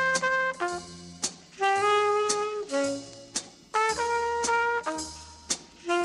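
Late-1950s jazz film-score music: a brass section of trumpets and trombones plays short, punchy phrases of held chords with sharp drum-kit hits between them, over a walking bass, with saxophones joining.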